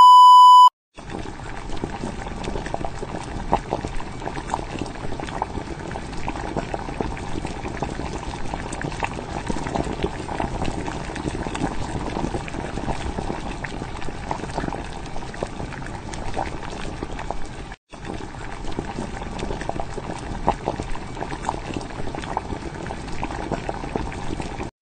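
A brief steady test tone with the colour-bar card, then food bubbling in a pot at a simmer: a steady crackle of many small pops, cut off for a moment about three-quarters of the way through.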